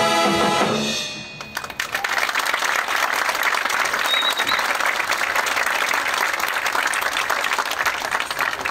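A drum and bugle corps' horn line holding its final chord, which cuts off about a second in; the crowd then breaks into steady applause.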